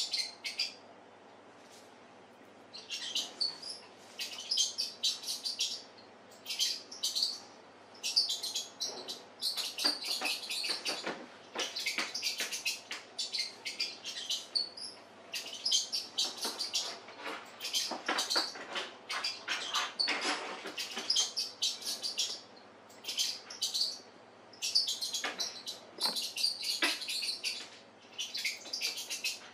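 High-pitched mouse squeaks from a cat game video playing on a screen, coming in quick runs separated by short gaps.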